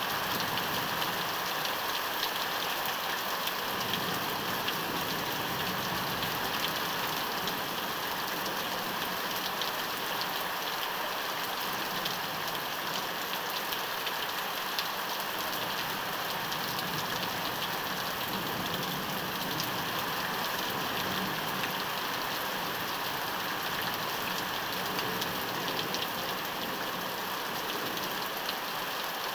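Steady rain pouring down in a thunderstorm, drops pattering on nearby surfaces.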